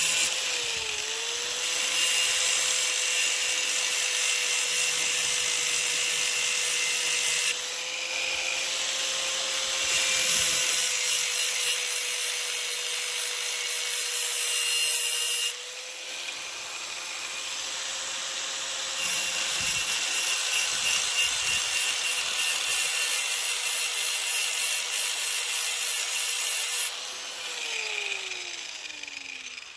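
Electric angle grinder with a cutoff wheel, a cheap Harbor Freight one, grinding the snapped end of a metal bolt flat in a vise with light pressure. The motor hums steadily while the hiss of the cut comes and goes as the wheel bears on the metal. Near the end it is switched off and the motor winds down.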